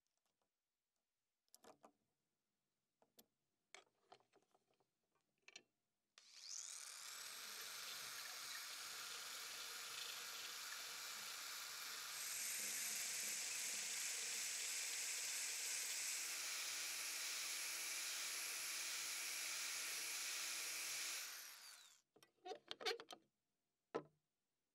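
Electric drill spinning a small sandpaper drum mounted on a rivet mandrel: the motor winds up and runs steadily, grows louder about halfway as the drum is put to the steel jaws of pliers held in a vise, then is switched off and spins down. Scattered clicks and knocks of handling come before and after.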